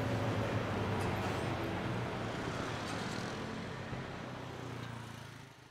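Steady road traffic noise with a low engine hum, fading away near the end.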